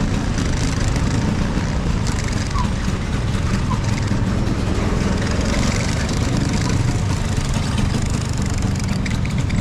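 1975 Vespa Super scooter's two-stroke single-cylinder engine running steadily as it is ridden.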